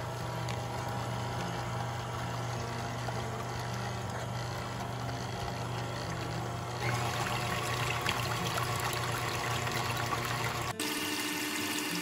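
KitchenAid stand mixer running with its wire whisk beating pudding mix and milk in a stainless steel bowl: a steady motor hum under the sloshing and splashing of the thin liquid. The sound grows a little louder and brighter about seven seconds in. Near the end the hum shifts to a higher pitch.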